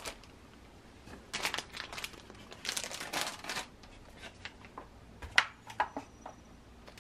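Crinkling and rustling of plastic bags and honeycomb kraft-paper wrapping as groceries are unpacked by hand, in two runs. Then a few sharp taps as items such as a plastic tomato container are set down on a desk, the loudest about five seconds in.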